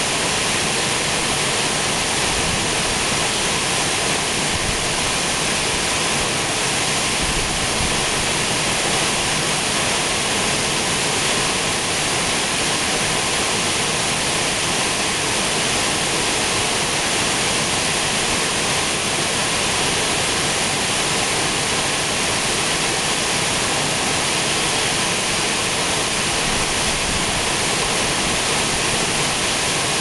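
Waterfall plunging down a rock face into a pool: a steady, unbroken rush of falling water.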